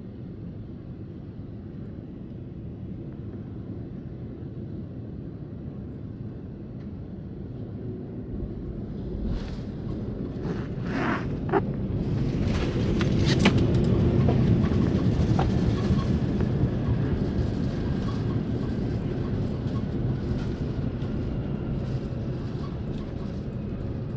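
Boeing 787-9 landing, heard from a cabin window seat: a steady rumble of engines and airflow on short final, then a cluster of knocks as the wheels touch down about ten seconds in. The rollout rumble grows loudest a few seconds later and then slowly eases as the airliner slows on the runway.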